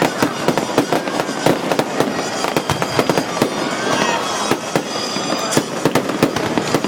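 Fireworks display going off in rapid succession: a dense, continuous run of sharp bangs and crackles, several a second.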